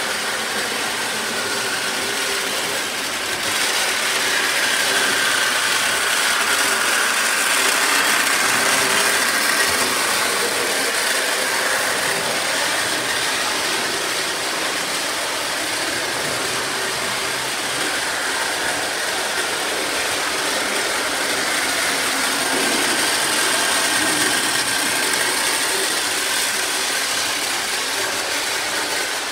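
O-gauge three-rail model trains running, among them a Lionel No. 51 Navy Yard switcher. Metal wheels clatter steadily on the track, with a gear and motor whine that swells and fades.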